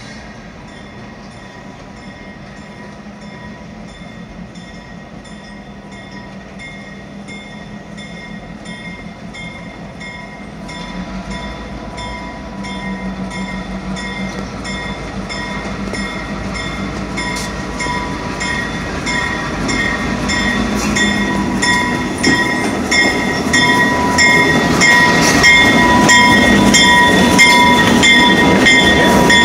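Two EMD GP38-2 diesel locomotives, each with a 16-cylinder 645 two-stroke engine, approach slowly and grow steadily louder until they pass close by near the end. A bell rings throughout at about one and a half strokes a second.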